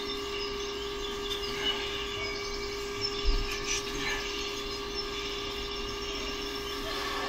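Steady room hum with a constant tone, and a single soft low thump about three seconds in.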